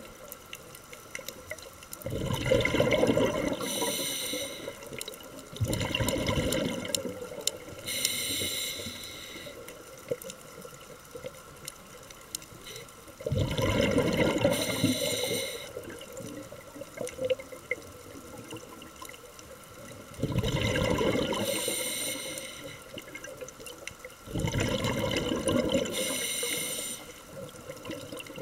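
A scuba diver breathing through a regulator underwater: about five slow breaths, each a high hiss of inhaling followed or overlapped by the bubbling of the exhaled air, with quiet stretches of several seconds between them.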